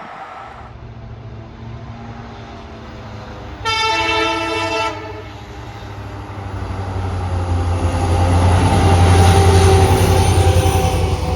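Indian Railways WDP4 diesel-electric locomotive sounding its horn in one blast of just over a second, a few seconds in. Its EMD two-stroke engine's deep throb and the rumble of the train then grow louder as it approaches and passes.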